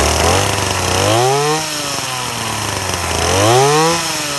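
Small two-stroke scooter engine fed by a 3D-printed electric turbocharger, revved up twice with the throttle, its pitch climbing and falling back each time, about a second in and again about three seconds in.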